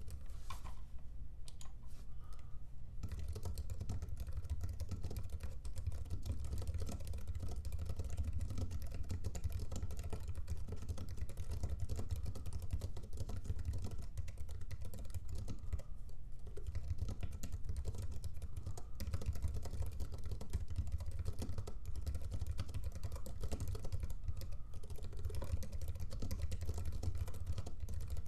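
Fast touch typing on an Apple Wireless Keyboard, a chiclet-style Bluetooth keyboard with low-profile scissor-switch keys. A continuous, very quiet patter of soft key clicks starts about three seconds in, over a steady low hum.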